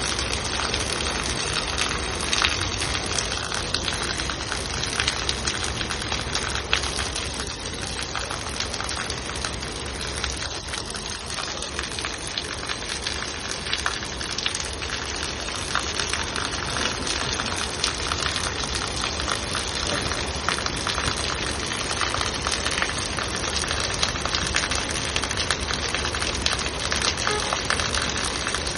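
Heavy rain falling steadily: a dense crackle of drops over an even rush that never lets up.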